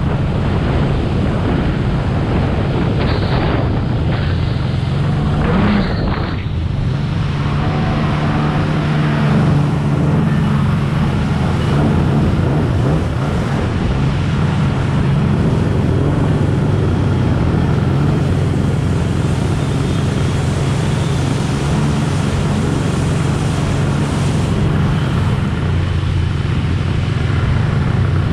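Jet ski running steadily at speed: a constant engine drone over the rush of water and spray against the hull.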